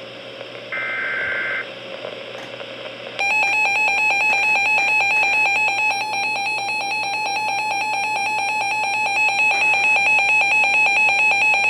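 Weather radio alert for a Severe Thunderstorm Warning: over radio static, a short burst of tones about a second in, then from about three seconds in a loud, rapidly pulsing electronic alarm tone.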